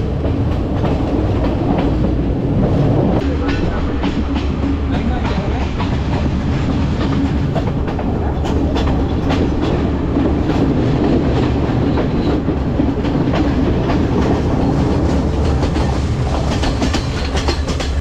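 Passenger train running on the rails, heard from an open carriage window: a steady rumble with irregular wheel-on-rail clicks and clatter.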